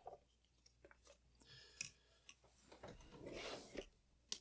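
Faint handling of small tools and metal camera parts on the workbench: a few light clicks and a soft rubbing noise about three seconds in.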